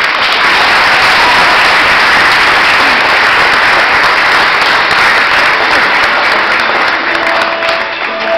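Audience applauding, starting suddenly and loud. It thins near the end as a held musical note comes in underneath.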